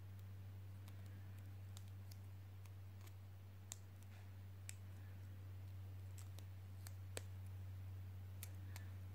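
Faint, irregular small clicks and taps from fingers handling a small DC hobby motor and twisting its thin wire, over a steady low hum.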